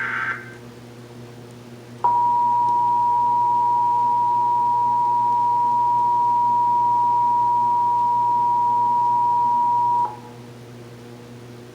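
Emergency Alert System tones: the last data burst of a SAME header ends just after the start, and about two seconds in the EAS attention signal sounds. It is a steady two-tone alarm (853 and 960 Hz together) held for about eight seconds and then cut off, marking the start of a Required Monthly Test.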